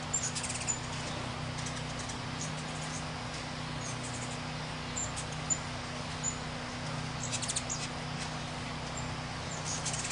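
Ruby-throated hummingbirds giving scattered short, high chips and a few quick bursts of rapid chattering, the aggressive calls of birds squabbling over a feeder. A steady low hum runs underneath.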